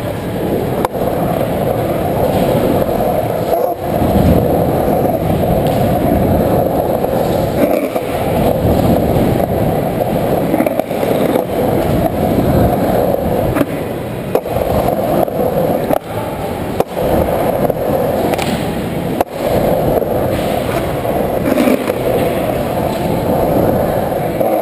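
Skateboard wheels rolling and carving on a concrete pool bowl: a steady rolling noise that dips briefly now and then, with a few sharp knocks along the way.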